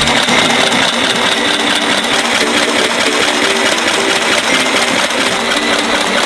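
Small Singer children's sewing machine running steadily while stitching fabric.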